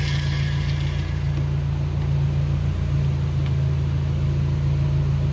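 Steady mechanical hum from a worn rolling bearing in a Renault manual gearbox, run so its noise can be heard; the mechanic takes it to be damaged from running without lubrication.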